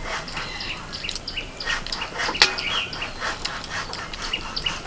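Birds chirping in short repeated calls, with light clicks of hand-eating from steel plates and one sharper clink about two and a half seconds in.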